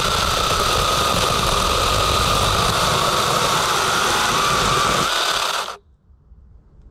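Cheap battery-powered one-handed mini chainsaw with a brushed DC motor, running steadily with a high whine as its chain cuts through a small log. The pitch rises slightly as it finishes the cut, and the saw stops suddenly near the end.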